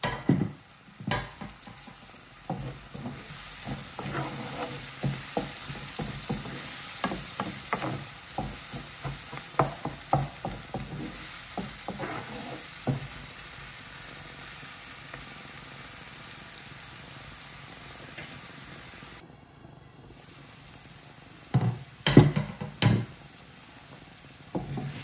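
Chopped onion, tomato and ground spices sizzling in oil in a frying pan while a wooden spoon stirs and scrapes through them, with frequent clicks of the spoon against the pan for the first dozen seconds. The sizzling goes on steadily, with a few louder knocks near the end.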